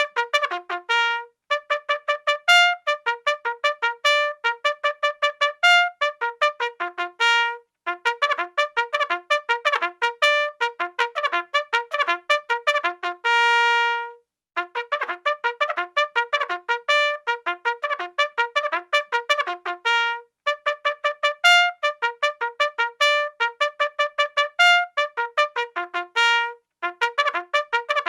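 Bugle call played in fast, clipped notes, in phrases of about six seconds separated by short breaks, with one long held note about halfway through.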